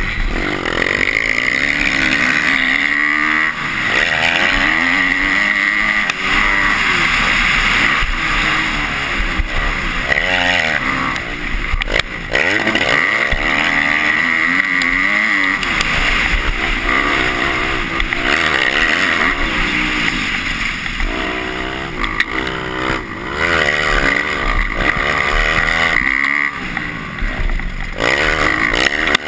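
A 250-class motocross bike's engine, heard from on the bike, revving hard and falling back over and over as the rider throttles and shifts around the track, its pitch rising and dropping every second or two.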